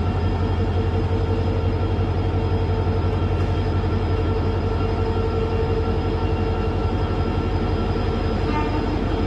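Indian Railways WDP4D diesel locomotive's EMD 16-cylinder two-stroke engine humming steadily, a deep, even drone with steady higher tones over it.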